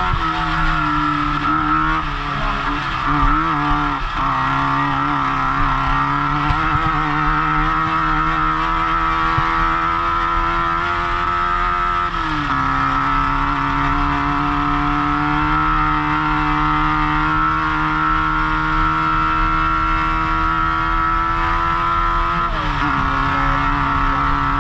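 Off-road race car's engine running hard at a steady pitch, heard onboard from the driver's helmet, with the noise of the car at speed underneath. The engine note steps down about halfway through and shifts again near the end.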